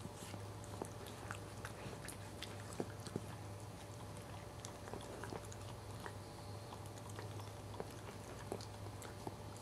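Faint, irregular wet licking and smacking clicks from a Cairn Terrier mother licking at her newborn puppy's amniotic sac during whelping, over a low steady hum.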